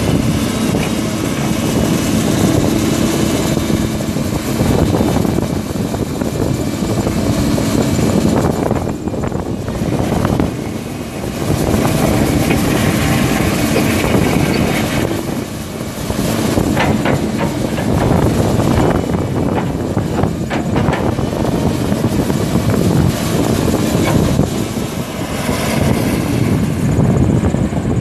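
Diesel engine of a 2006 Link-Belt 240LX long-reach excavator running steadily. It dips briefly twice, and there is a run of faint clicks in the middle.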